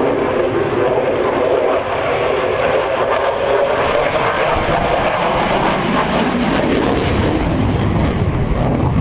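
F-16 fighter jet's engine noise as it flies past. A tone in it falls in pitch over the first few seconds, and a deep rumble builds in the second half.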